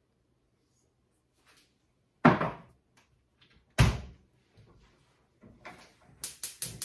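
Two heavy thumps about a second and a half apart, then near the end a gas range burner's igniter clicking rapidly, about five clicks a second, as the burner is being lit.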